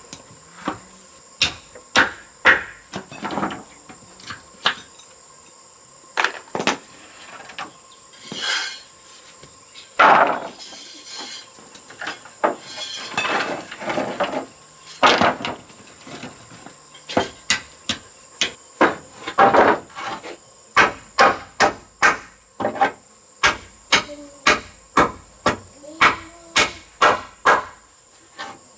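Hand-tool strikes, most likely hammering: irregular knocks with a few scraping sounds between them, then a steady run of about two blows a second in the last third. Insects drone steadily and high-pitched underneath.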